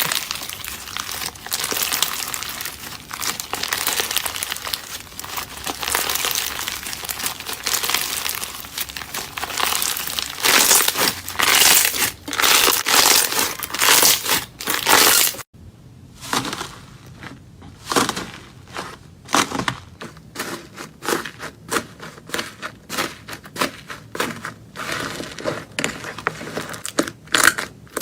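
Slime being squeezed and pressed by hand, a dense crackling for the first half; about halfway through it cuts to a new clip with sparser, separate crackles and pops.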